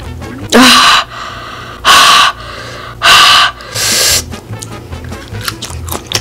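Four loud, sharp breaths through the open mouth in the first four seconds, each about half a second long: a person gasping and panting against the burn of very spicy food. Quiet background music runs underneath.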